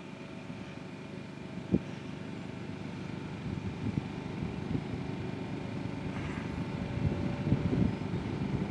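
Faint, steady hum and whine of a distant electric F3A pattern plane: a Plettenberg Orbit 30-10 motor turning the propeller through an Adverrun SingleDrive. Wind buffets the microphone, growing stronger toward the end, with one sharp thump about two seconds in.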